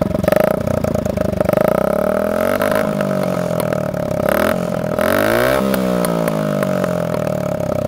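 Dirt bike engine running through a homemade exhaust tip, revved up and eased back so the pitch rises and falls, highest about five and a half seconds in.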